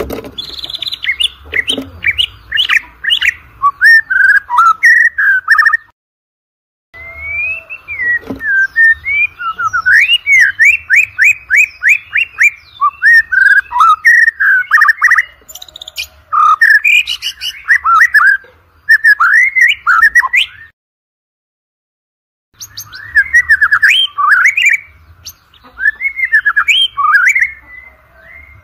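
White-rumped shama singing a fast, varied song of rising whistles, slurred notes and rapid chattering trills. The song stops dead twice for a second or two, about six and twenty-one seconds in.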